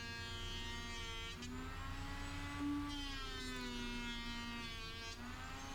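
Soft background music of slow, held notes that change pitch every second or so, over a steady low hum.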